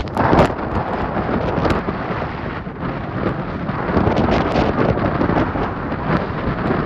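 Strong wind gusts blasting the microphone: a loud, unbroken rumbling roar that swells and buffets from moment to moment.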